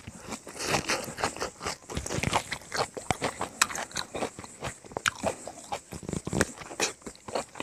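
A person chewing and crunching mouthfuls of rice, raw leafy greens and pork, with many irregular crunches; near the end he bites into a chunk of pork.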